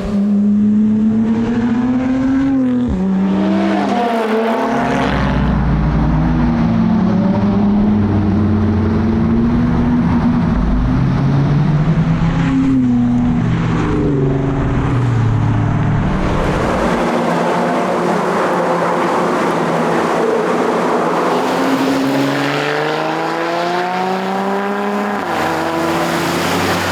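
Lotus Evora GT410 Sport's supercharged V6 pulling hard through the gears: the engine pitch climbs and drops sharply at each upshift, several times, over steady tyre and road noise.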